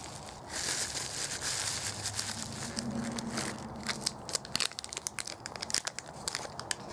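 Plastic bubble wrap and a zip-lock bag crinkling and rustling as a part is pulled out of them by hand. A run of sharp crackles comes in the second half.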